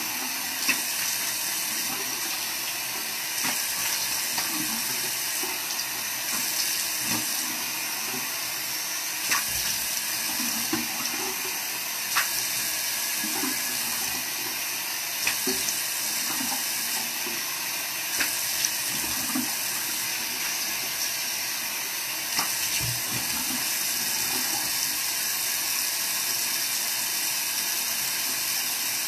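Tap running steadily into a bathroom sink while a face is rinsed with cupped hands, with scattered small splashes and drips.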